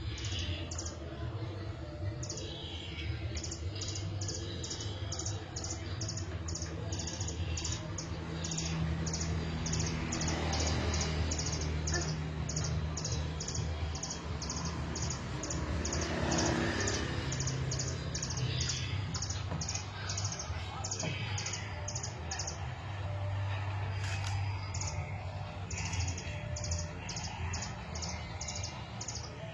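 White-rumped shama (murai batu) singing a long roll: a steady run of short, high, evenly repeated notes, about three a second.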